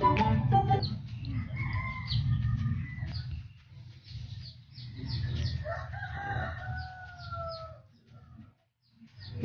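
A rooster crowing twice, the second a long call that sags in pitch toward its end, over a steady low rumble.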